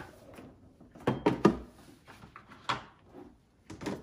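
Several sharp knocks and clatters of hard objects being handled, the loudest a quick run of them about a second in and more near the end, with a small room's echo.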